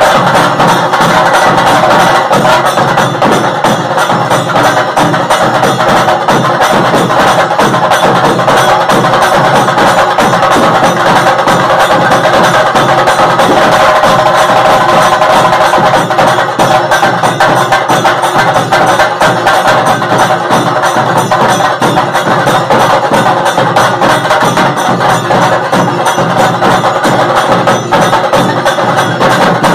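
Festival drum ensemble of large frame drums and rope-laced barrel drums, beaten with sticks in a loud, fast, continuous rhythm.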